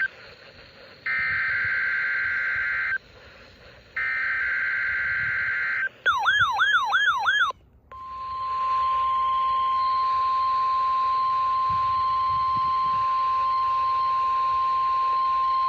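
NOAA Weather Radio alert tones for the Required Weekly Test. Two screeching SAME digital data bursts, each about two seconds long and a second apart, come with hiss between them. Then a warbling tone lasts about a second and a half, and after a short gap the steady 1050 Hz warning alarm tone sounds and holds.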